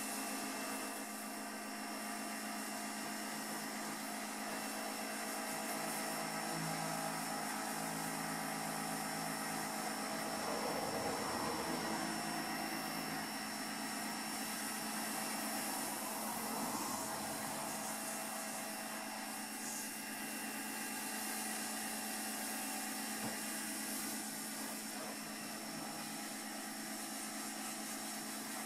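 Pressure washer running steadily: an even motor-and-pump drone with the hiss of the water jet, swelling a little now and then as the spray shifts.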